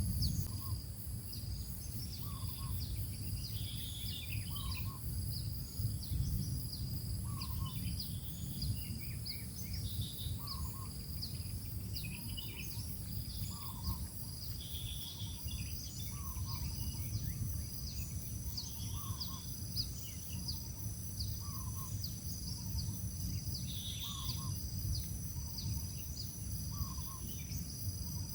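Birds chirping over a steady low hum: a short double call repeats about every second and a half, with scattered higher chirps between, and a faint steady high whine underneath.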